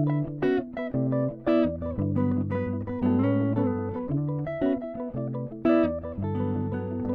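Background music: plucked acoustic guitar notes over a low sustained bass line.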